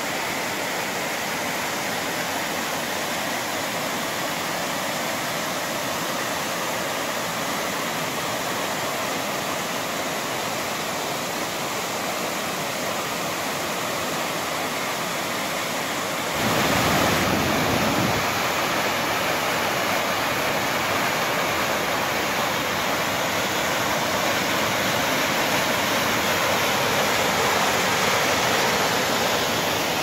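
Wild mountain river rushing over rocks and cascading between boulders: a steady rush of white water. About halfway through it grows louder, with a brief low rumble, and stays louder after.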